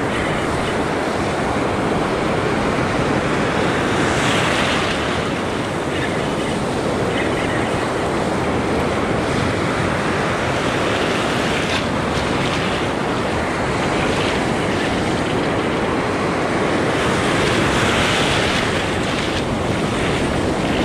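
Ocean surf washing and breaking around the legs of a wader, with wind buffeting the microphone; the wash swells louder twice, about four seconds in and again near the end.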